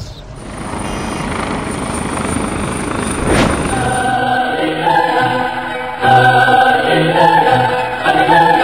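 A rising whooshing swell of noise with a faint high whistle, building for about three and a half seconds and ending in a sweep. From about four seconds in, choir-like singing with long held notes takes over.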